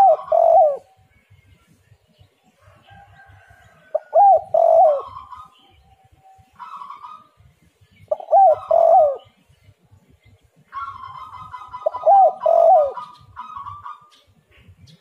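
Spotted dove cooing repeatedly: four loud phrases of curving coo notes, about one every four seconds, with fainter, higher bird calls in between.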